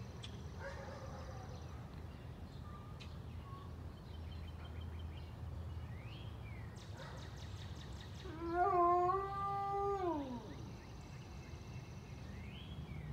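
A high-content wolf dog gives one howl about eight seconds in, held for about two seconds and then sliding down in pitch as it ends. Birds chirp faintly in the background.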